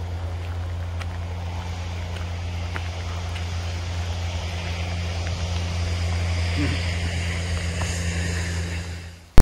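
A motor engine running with a steady low hum, under a hiss that grows louder toward the end before the sound fades out quickly.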